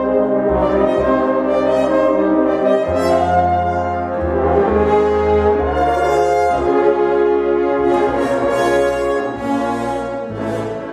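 A French horn ensemble of many horns playing a chordal passage in harmony. The music fades near the end.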